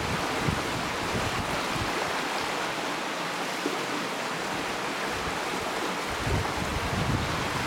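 Steady rush of flowing river water over rocks. Low gusts of wind buffet the microphone at the start and again near the end.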